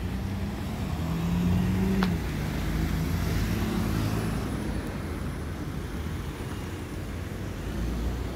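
Street traffic with a car engine passing close by, its hum swelling to a peak about two seconds in and then easing off over a steady low rumble.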